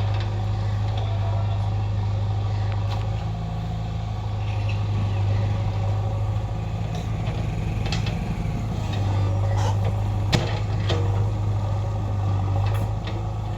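A backhoe loader's diesel engine running steadily, with a few sharp knocks; the loudest knock comes about ten seconds in.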